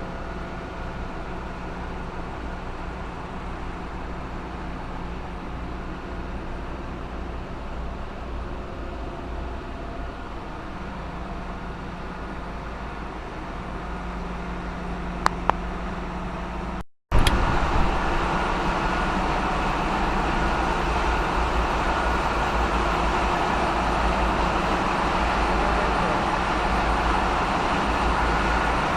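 Ship engine-room machinery running: a steady, dense drone with constant humming tones. There are two sharp clicks about halfway through. Then the sound breaks off abruptly, and after the break the machinery noise is louder and fuller.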